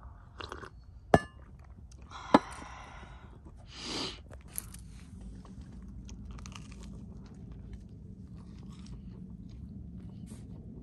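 Two sharp metallic clinks and crinkling aluminium foil as a crisp croffle is handled with metal tongs, followed by many small crunchy ticks of chewing.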